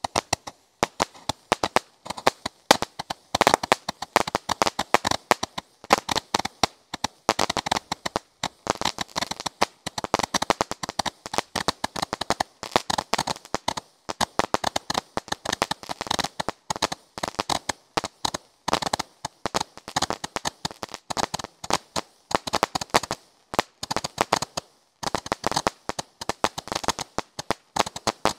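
A consumer 'Gatling gun' firework cake firing a rapid, continuous string of bangs and crackling pops, several a second, like machine-gun fire, with one brief break near the end.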